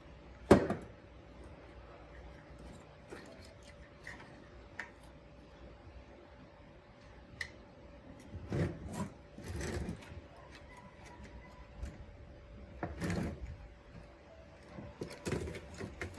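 Hand work on a radio-cassette player's parts: a sharp knock about half a second in, then several short rubbing or scraping strokes later on, over a faint steady hum.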